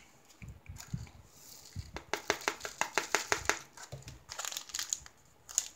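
A small plastic bag of rhinestone drills being handled over a plastic tray: crinkling plastic and light clicks, faint at first and densest about two to three and a half seconds in.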